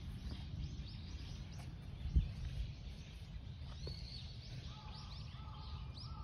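Outdoor ambience: small birds chirping in quick short calls over a steady low rumble of wind on the microphone. A single thump about two seconds in, and a faint steady hum from about five seconds in.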